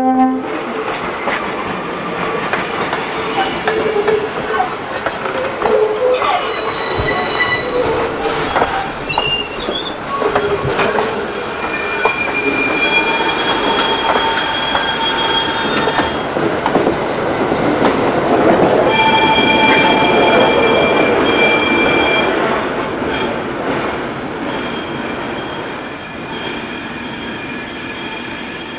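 A train passing close by: the cars' rumble and clatter on the rails, with high steady metal-on-metal squealing ringing out several times. It is loudest about two-thirds of the way through, then fades as the train moves away. A horn blast cuts off right at the start.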